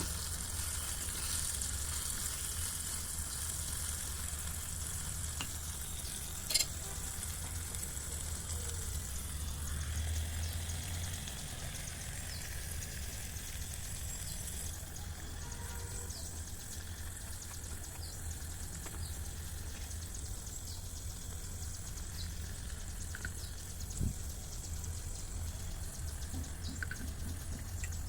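Food frying in oil in a miniature pan, a steady sizzle over a low steady hum, with two sharp clicks, one about six seconds in and one near the end.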